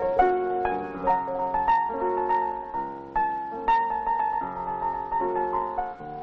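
Solo piano music, single notes and chords struck in quick succession, each dying away after it is played.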